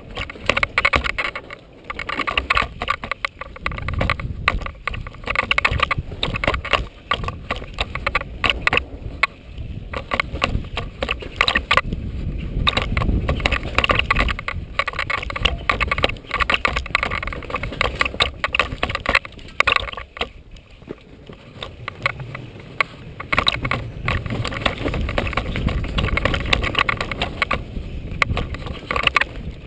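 Downhill mountain bike descending a dirt forest trail at speed, heard from a camera on the rider: continuous tyre rumble on loose earth with a dense, fast clatter of chain and frame rattling over the bumps.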